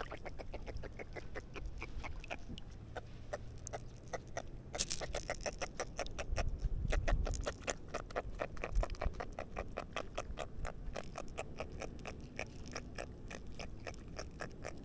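Spinning reel clicking in a fast, even run of ticks while a hooked jack is played on the line. About six seconds in there is a low rumble.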